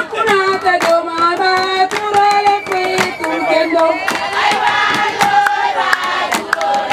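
A group of women singing together in chorus, with held, wavering notes, over sharp, irregular hand claps.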